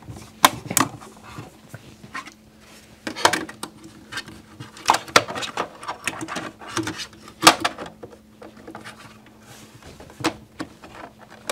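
Plastic cover caps being fitted onto a Blum Aventos HL lift mechanism inside a plywood cabinet: a series of irregular sharp clicks and knocks as the caps are handled and snapped into place.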